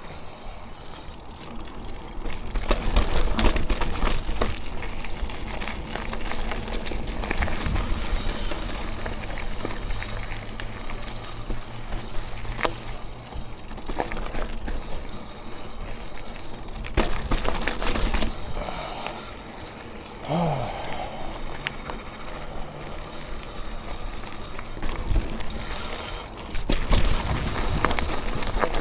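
Mountain bike ridden over rough, rocky trail: tyres running on dirt and stone, with frequent sharp knocks and rattles from the bike.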